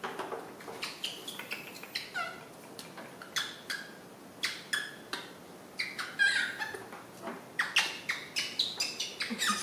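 Crisp, irregular snaps of yardlong beans being broken into pieces by hand, mixed with a few short high squeaks from a baby monkey.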